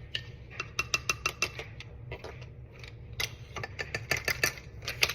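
A spoon clinking and tapping against a mug in quick irregular strokes, some with a short ringing tone, as the baking powder is added and worked in. There are two clusters of taps: one about a second in and a longer one in the last two seconds.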